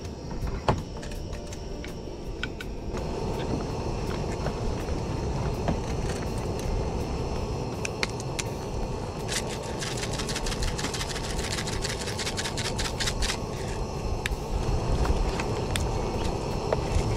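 Sardine and onion stew simmering in a steel camping pot, with a run of quick bubbling pops in the middle over a steady low rush. A wooden spoon clicks against the pot near the start.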